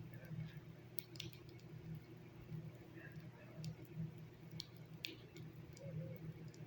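Faint, irregular clicks and ticks, about a dozen scattered unevenly, over a steady low hum.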